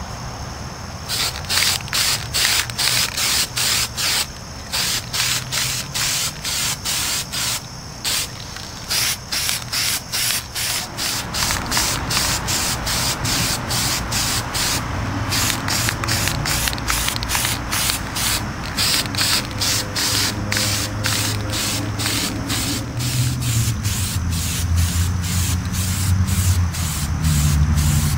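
Aerosol can of spray paint hissing in many short bursts, about one to two a second, as it is sprayed in quick passes; the bursts run closer together in the second half, over a low rumble.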